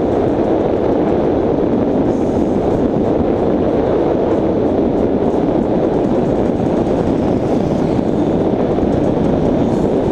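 Steady rush of wind and road noise on a camera moving along a road, dull and even throughout.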